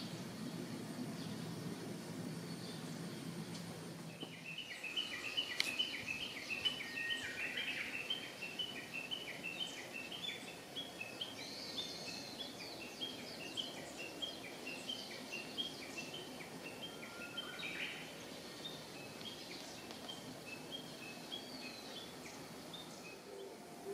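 A songbird calling outdoors in woodland: a long run of rapid, short, high chirping notes, starting about four seconds in and stopping about eighteen seconds in, over steady outdoor background noise.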